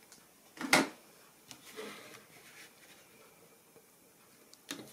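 Paper and cardstock being handled on a tabletop: one sharp tap just under a second in, then a few faint ticks and soft rustling, and another light tap near the end.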